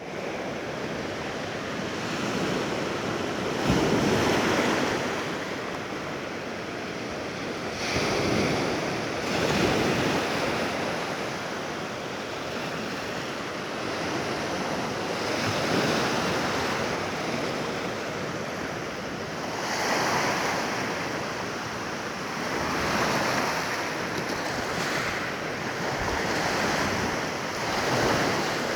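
Sea waves breaking on a beach, a steady rush of surf that swells louder every few seconds as each wave comes in.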